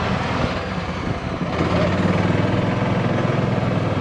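Golf cart driving along a paved cart path: a steady motor hum over an even rushing noise.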